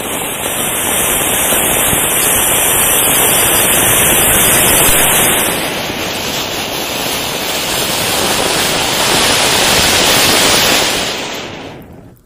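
Two flower-pot (pusvanam) fountain fireworks burning together, a loud, steady rushing hiss of spraying sparks that fades out just before the end.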